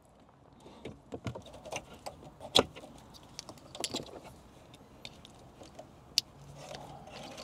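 Plastic wiring-harness connectors being unclipped and handled at the back of a car head unit: scattered light clicks and rattles, with sharper clicks about two and a half seconds in and again about six seconds in.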